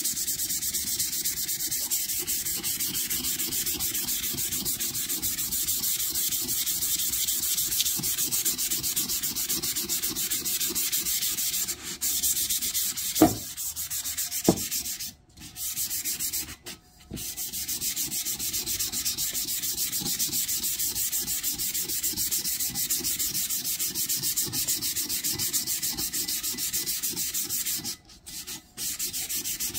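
Sandpaper rubbed by hand over a bare stainless steel tumbler in quick back-and-forth strokes, a steady scratchy hiss. It stops briefly a few times, and there are two sharp knocks about halfway through.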